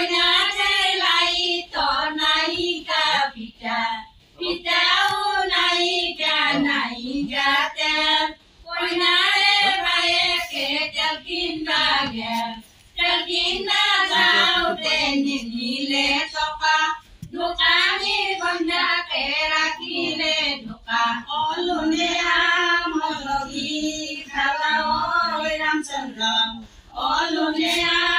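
Women singing an Assamese biya naam, a traditional wedding song, in sung phrases of a few seconds with short breaks between them.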